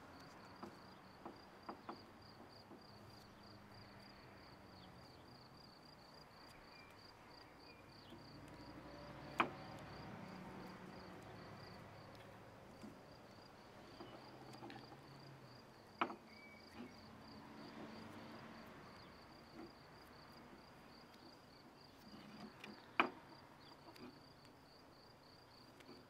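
Crickets chirping in a steady, high-pitched pulsing trill. Over it come faint rustles and a few sharp clicks, about a third, two thirds and near the end of the way through, as duct tape is handled and pressed onto a wooden arrow shaft.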